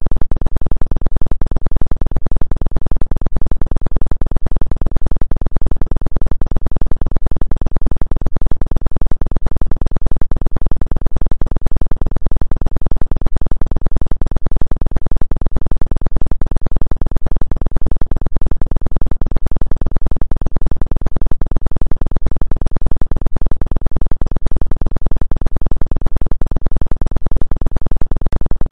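Synthesized electronic drone, strongest in the deep bass, pulsing rapidly and evenly without change: a 'healing frequency' tone billed as 2 Hz.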